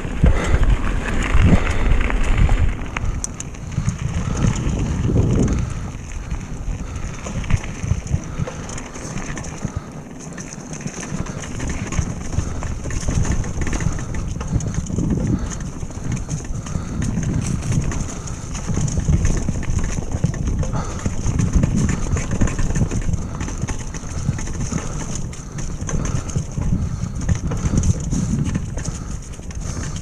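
Retro downhill mountain bike riding fast over a rough, leaf-covered dirt singletrack: a continuous, irregular rumble and clatter from the tyres, chain and frame over bumps and roots.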